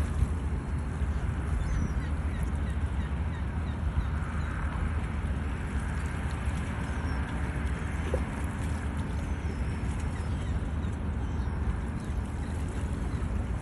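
Steady outdoor ambience of wind and water with a deep rumble, and a few faint high bird chirps.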